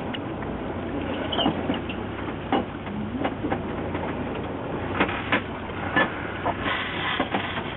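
Fishing boat's engine running steadily, with scattered clicks and knocks on board.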